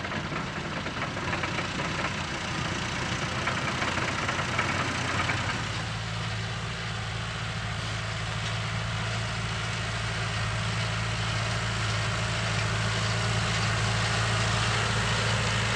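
John Deere 5100R tractor's four-cylinder diesel engine running steadily under load as it pulls a seed drill through the field. About six seconds in the sound changes to a steadier, lower engine drone that grows a little louder toward the end.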